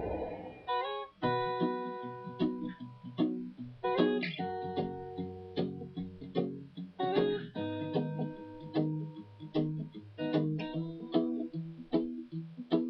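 Background music: an instrumental break of a pop song, with an acoustic guitar strumming chords in a steady, bouncy rhythm.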